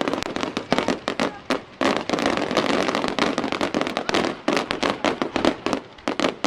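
Fireworks display: many aerial shells bursting in quick succession, making a dense, continuous run of sharp bangs and crackles.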